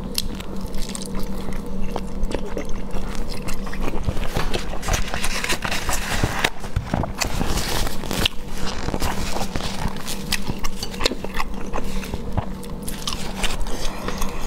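Close-miked biting and chewing of soft, translucent food sheets dipped in chili oil: a run of many small wet clicks and smacks, over a low steady hum.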